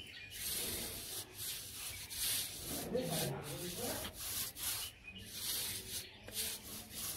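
Rangoli powder being rubbed out between the fingers onto the floor: a run of short, soft rubbing hisses, one or two a second.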